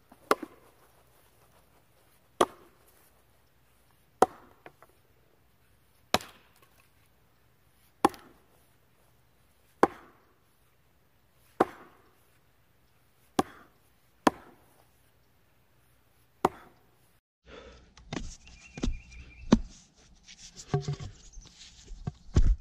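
Heavy single strikes of a tool on wood, evenly spaced about two seconds apart, about nine blows in a row. In the last five seconds these give way to quicker, irregular knocking and scraping.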